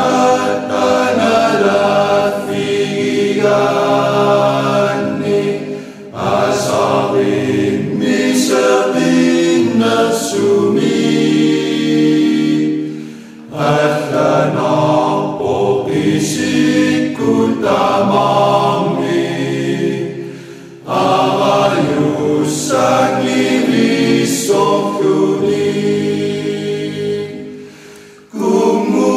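Background vocal music: voices singing slow, sustained phrases, about seven seconds long, each followed by a brief pause.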